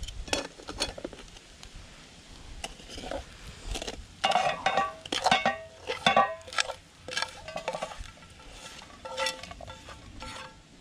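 A utensil scraping and knocking in a metal fry pan, pushing cooked food out onto a metal plate: a string of scrapes and clinks, busiest in the middle, some with a short metallic ring.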